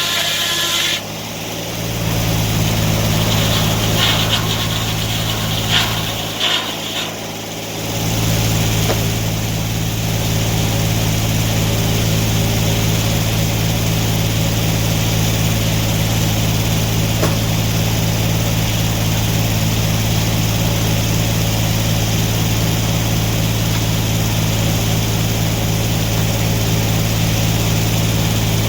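Sawmill engine running at a steady pitch, with higher rasping noise in the first several seconds. It drops off briefly a little after six seconds in, then comes back up and holds steady.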